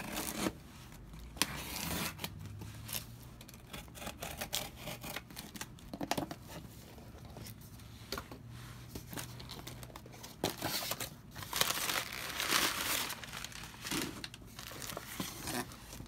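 Cardboard shipping box being slit open with a box cutter and unpacked: tape tearing, cardboard flaps scraping, and packing paper crinkling as it is pulled out, loudest about two-thirds of the way through.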